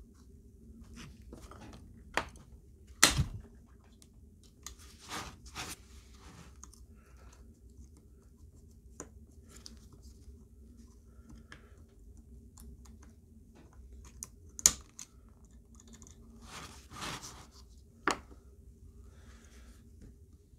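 Handling noise from a Milwaukee M18 5Ah battery pack being taken apart by hand: its loose circuit board and plastic casing give scattered clicks, knocks and short scrapes, with a few sharper clicks, over a faint steady hum.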